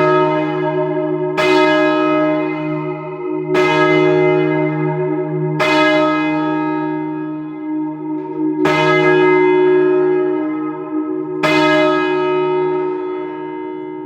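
One of the heavy back bells of a ring of twelve (9th to 12th, 14 to 32 cwt) being rung up. Its clapper strikes five times, each stroke ringing on into the next, with the gaps growing from about two to about three seconds as the bell swings higher.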